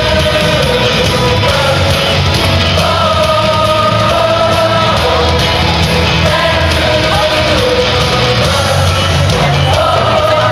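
Loud music with a singing voice holding long, gliding notes over a heavy, steady bass.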